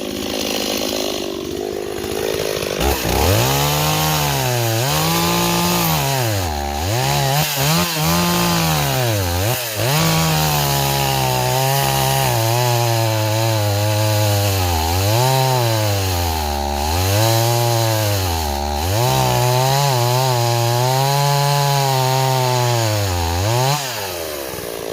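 A Stihl 026 two-stroke chainsaw cutting into a log at full throttle. From about three seconds in, its engine speed sags and recovers again and again as the chain bites and bogs. The owner puts this grabbing cut down to rakers filed too low and a stretched chain.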